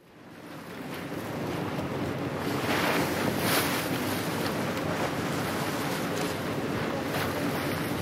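Wind and sea noise aboard a moving boat, with a low engine hum beneath. It swells up over the first two seconds, then stays steady.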